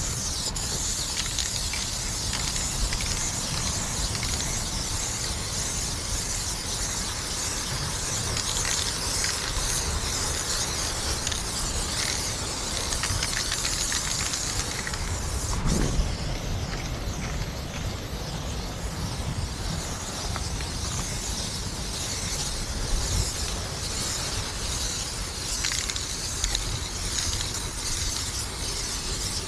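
Aerosol spray paint can hissing in long steady sprays, easing off for a few seconds near the middle, over a low rumble.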